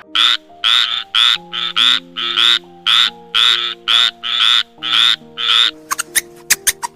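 A frog croaking over and over, about two loud croaks a second, over background music. Near the end the croaks stop and give way to a run of rapid, short, high squeaks.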